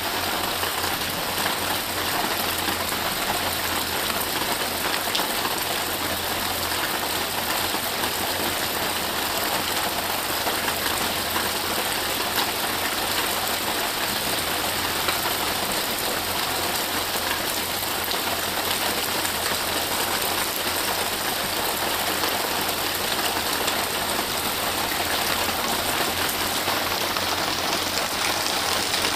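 Steady rain falling on forest and grass, an even wash of sound with no breaks.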